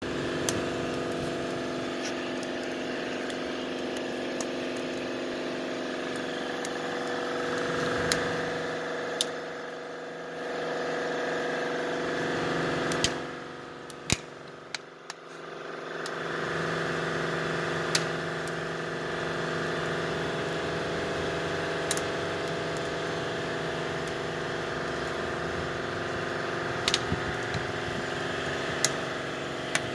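Steady machine hum of an engine or motor running, the loudest sound, which dips and muffles for a few seconds about halfway through. Scattered sharp pops from an open fire crackling in a steel drum.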